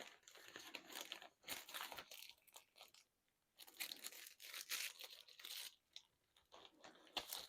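Faint, irregular crinkling and rustling of small packaging being handled and pulled open during an unboxing.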